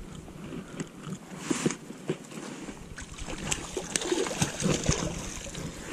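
A hooked mullet splashing and thrashing as it is landed, with scattered clicks and knocks from the line and tackle being handled, more of them in the second half.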